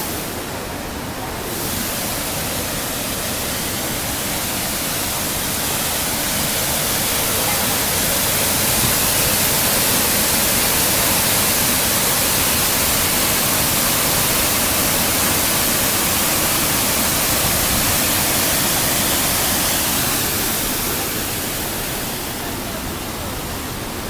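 Waterfall crashing into its plunge pool, a steady rushing hiss that grows louder a few seconds in and eases off again near the end.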